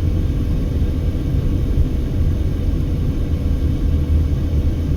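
Steady low rumble of a car being driven on a highway, road and engine noise heard from inside the cabin, with a faint steady hum above it.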